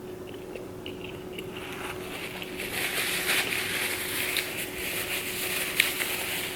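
A person chewing food close to the microphone, the chewing noise with small clicks getting louder about two and a half seconds in, over a faint steady hum.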